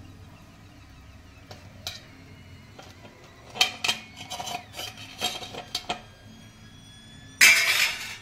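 Metal kitchen utensil clinking and scraping against a frying pan and a plate as fried batuk are lifted out of the oil: scattered clinks, some ringing briefly, a busier run of them in the middle, and one louder harsh scrape near the end.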